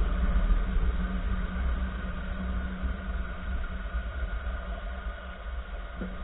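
2014 Nissan March on the move: steady low rumble of road, tyres and engine, with a single faint knock near the end.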